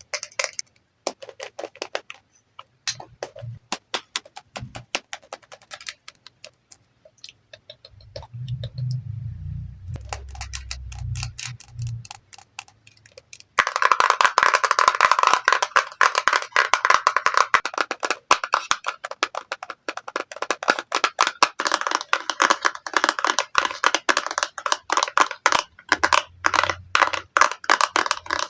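Tapping on make-up products: scattered, spaced taps at first, with a brief low rumble about a third of the way in, then fast continuous tapping from about halfway through.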